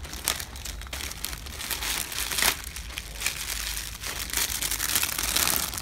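Crinkling and rustling of Lego parts packets and paper instruction booklets being handled, an uneven run of crackles and small clicks that grows busier near the end.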